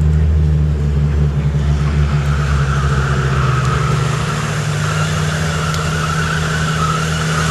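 Four-wheel-drive vehicle driving on beach sand, heard from inside the cab: a steady engine drone, with a higher hiss joining about two seconds in.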